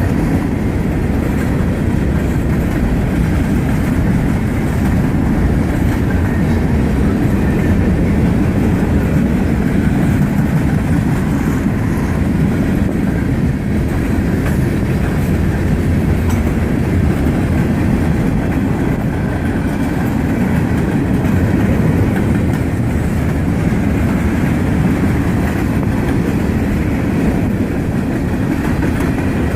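A freight train rolling past, its cars making a steady, continuous low rumble of wheels on rail.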